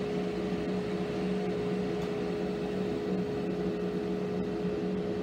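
The Maslow CNC's router is spinning freely, no longer cutting, with a dust collector running alongside it. Together they make a steady hum and a constant rush of air.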